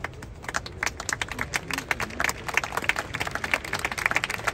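Crowd of spectators clapping: many sharp, overlapping claps, with voices underneath.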